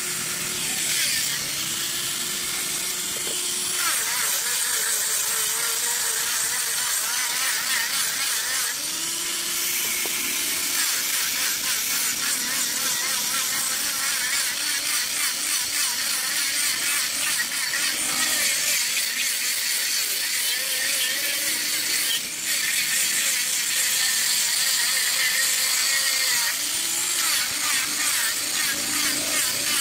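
Corded handheld angle grinder grinding the end grain of a curved hardwood handrail section: a continuous abrasive hiss over the motor's hum, which shifts in pitch as the tool is pressed into the wood, with a brief letup about 22 seconds in.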